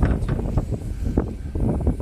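Wind buffeting the microphone on a boat at sea: a heavy low rumble with irregular crackling gusts.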